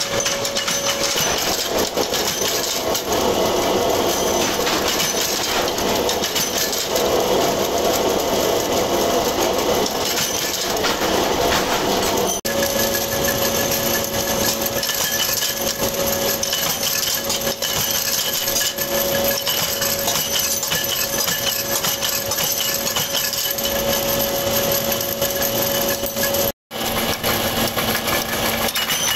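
Belt-driven flywheel heading press running, its ram striking steel rod blanks in the die in a rapid, steady metal clatter as bolt heads are formed, with loose rods clinking against the iron. A steady hum joins about a third of the way in, and the sound breaks off briefly near the end.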